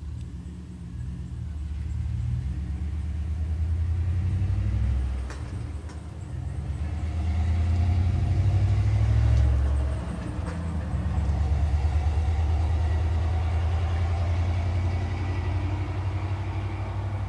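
A very loud truck engine runs nearby with a deep rumble that swells and eases, loudest about halfway through.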